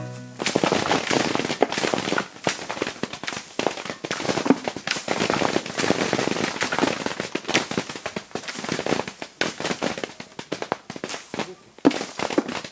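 Cherry plums falling onto plastic sheeting as the tree is shaken: a dense, irregular patter of many small hits, easing briefly near the end before a louder single hit.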